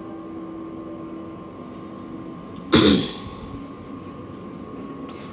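Steady hum of a running hydraulic hose crimping machine, with a steady tone through it. About halfway through there is one sudden, short, loud sound.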